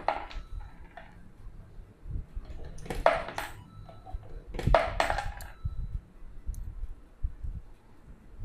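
Coins dropped into a piso wifi vending machine's coin acceptor: two sharp metallic clinks about a second and a half apart, each ringing briefly, as the coins are taken in and counted as credit.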